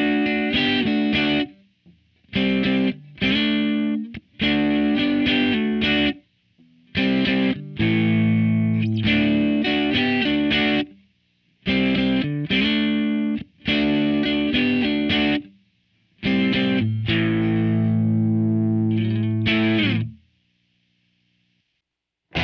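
Electric guitar played straight into a Line 6 POD 2.0 amp-modelling preset, sounding chords in short phrases of a second or three, each cut off by a brief silence. The playing stops about two seconds before the end.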